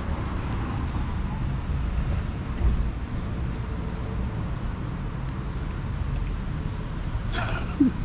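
Steady low rumble of street traffic and outdoor city background, with a short call near the end.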